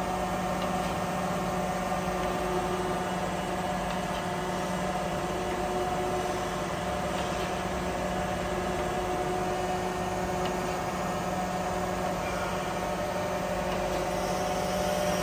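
Jakobsen SJ24 surface grinder running with its motors humming steadily, the table on automatic feed in continuous mode with the cross feed at normal speed.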